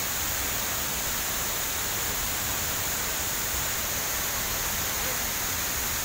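Steady rush of falling water from a waterfall, an even noise with no breaks.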